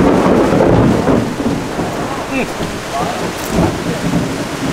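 Rain falling steadily with a low rumble of thunder, loudest in the first second and then easing back into the rain.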